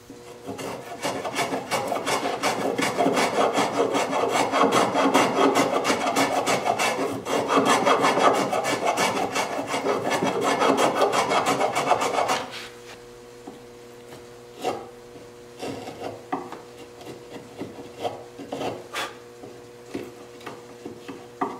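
Rapid back-and-forth rubbing of a small hand tool on the wood of a tenon, fine-tuning its fit, for about twelve seconds. It then drops to a quieter stretch of occasional light scrapes and ticks as the tenon shoulder is pared with a knife, over a steady low hum.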